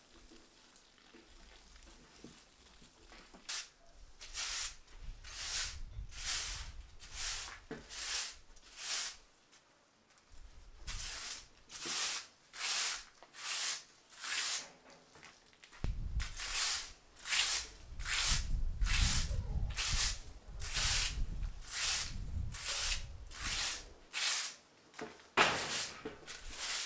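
Straw broom sweeping a concrete floor: brisk swishing strokes, about two a second, with a short pause about a third of the way through.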